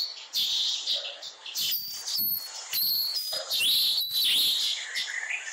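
Birds chirping: short high whistled notes, some held level and some gliding, mostly in the middle, over repeated brief rustling noises.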